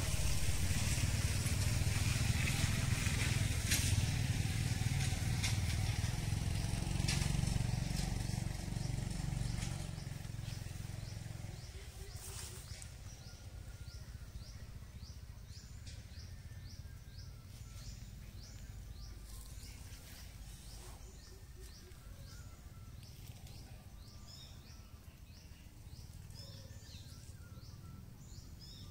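Outdoor rural ambience. A low rumble fades out about twelve seconds in, leaving a steady run of short, high, falling chirps, several a second.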